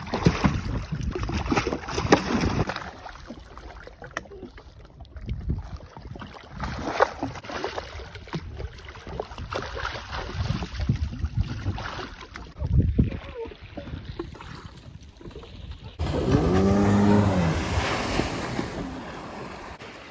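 Lake water splashing and sloshing around a jet ski as a rider clambers aboard, with wind on the microphone and irregular knocks and splashes. About sixteen seconds in, the sound jumps to a louder, steady rush of water with a brief rising-and-falling pitched sound.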